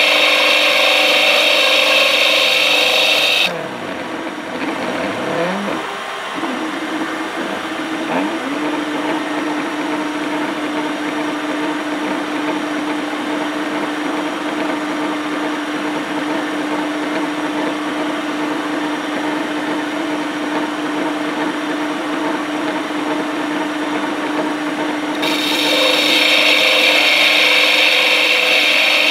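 CNC milling machine turning a Foster quick coupling: the machine runs with a steady hum throughout, and a loud high-pitched cutting sound stops about three and a half seconds in. A few sweeping rises and falls in pitch follow, and the high-pitched cutting sound returns near the end.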